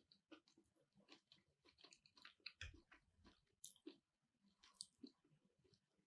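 Faint close-up chewing of a mouthful of keto sushi: a run of small, irregular wet clicks and soft crunches.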